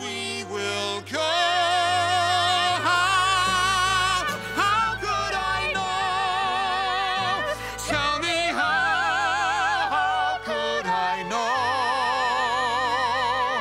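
A man and a woman singing a musical-theatre duet with orchestra, holding long notes with wide vibrato.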